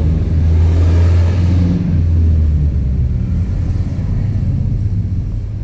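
A motor vehicle engine idling, a steady low rumble that is loudest in the first two seconds and then eases a little.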